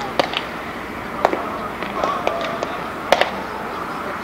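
Several sharp pops of a baseball smacking into leather baseball gloves during a game of catch, the loudest a close pair about three seconds in.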